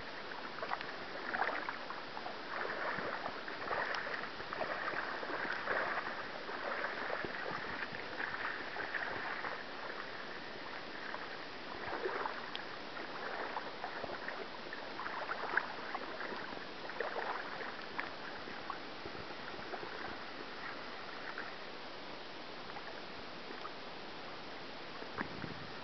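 River water lapping and rippling at the shore: an uneven wash of small splashes, busier in the first half.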